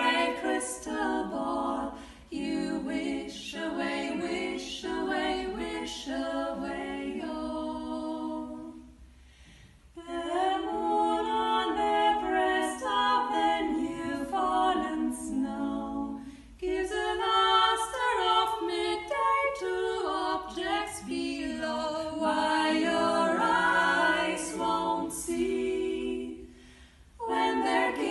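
Female vocal quartet singing a cappella in harmony, phrase by phrase, with short breaks about nine seconds in and again near the end.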